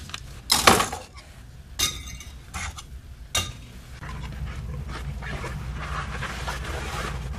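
A hand-pump spray bottle misting in three short spurts. After that, a roll of paper is handled and unrolled with a soft rustle over a steady low hum.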